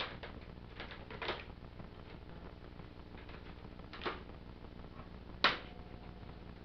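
Hard plastic toy parts of a Transformers Trypticon figure clicking and knocking as they are handled: a few scattered clicks, the loudest about five and a half seconds in.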